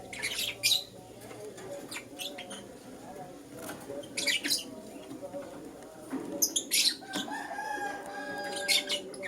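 Young lutino lovebirds chirping: short, sharp, high-pitched chirps in little clusters of two or three, several times over, with a faint held tone between the later ones.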